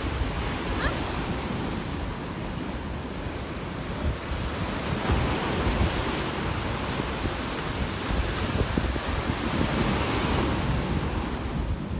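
Ocean surf breaking in white foam against a rocky shoreline, a continuous wash of waves, with wind buffeting the microphone.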